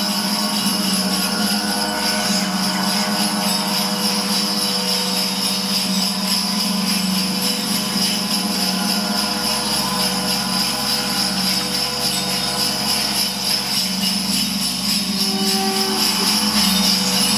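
Large gong played continuously with a mallet: a dense, steady wash of many sustained overtones, a low hum under a bright high shimmer.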